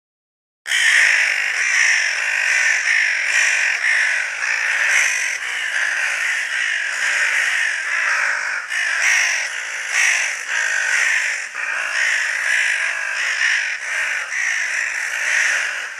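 Crows cawing, many calls overlapping without a break, starting just under a second in.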